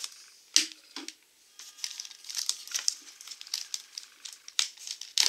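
Cardboard flap of a shipping box being pulled and torn open by hand, with crinkling of plastic wrap. Irregular crackles and scrapes, with sharp snaps about half a second in and again near the end.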